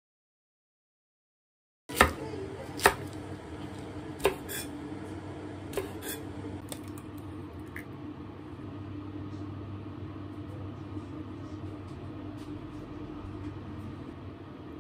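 Kitchen handling sounds after about two seconds of silence: two sharp knocks about a second apart, then a few lighter clicks, over a low steady hum.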